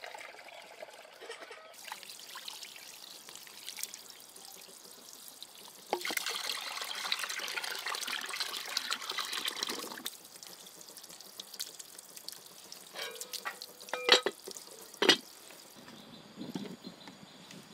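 Water trickling and pouring, with a louder, steadier pour from about six to ten seconds in. Two sharp knocks about a second apart near the end stand out as the loudest sounds.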